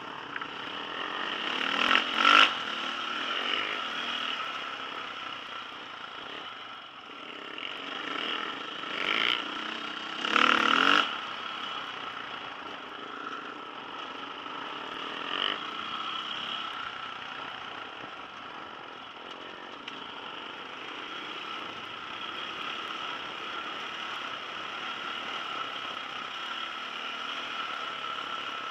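Off-road dirt bike engine running steadily while the bike is ridden along a rough trail, with loud sudden clatters about two seconds in and again around ten to eleven seconds.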